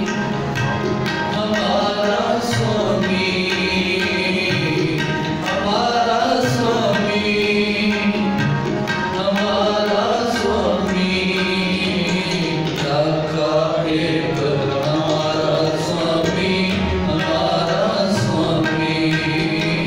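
Sikh shabad kirtan: two harmoniums holding chords, tabla keeping a steady rhythm, and a man's voice singing the hymn.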